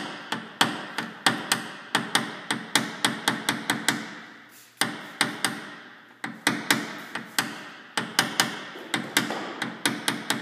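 Light, quick taps of a small blending hammer on a white tap-down punch held against a Toyota 4Runner's hood, knocking down the high spots of a dent in paintless dent repair. The taps come about three a second, each short and ringing, with two brief pauses.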